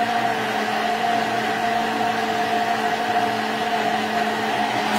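Handheld immersion (stick) blender running steadily in a mug, whipping a whole egg and olive oil into mayonnaise: a constant motor whine that holds one pitch throughout.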